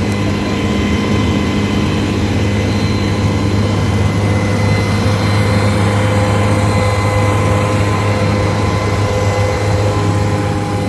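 Amphicar amphibious car under way on the water, its four-cylinder engine running steadily at speed as a loud, even drone. Rushing water and wind noise run under it.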